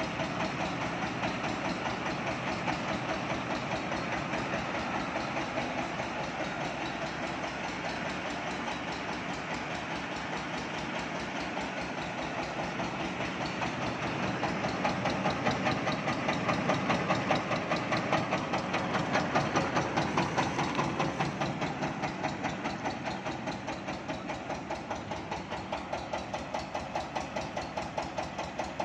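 Yanmar TS230-R single-cylinder diesel engine running steadily with a regular knocking pulse. It is louder for a while in the middle.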